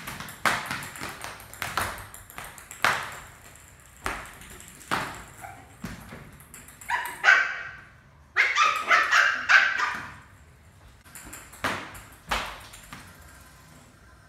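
Lhasa apso puppy barking in two quick runs of yips, about seven and then eight to ten seconds in. Around them come repeated sharp taps of a plastic cricket bat and ball on a hard tiled floor.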